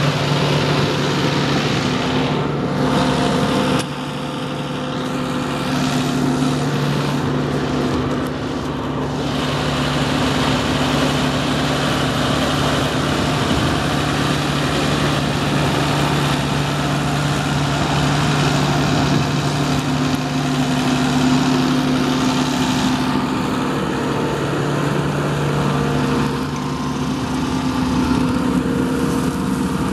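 Case MXM 175 tractor's diesel engine running steadily while ploughing, a constant engine drone that dips slightly about four seconds in and then picks back up.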